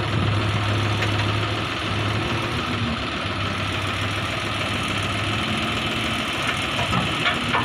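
JCB 3DX backhoe loader's diesel engine running steadily with a low hum that eases a little after about five seconds.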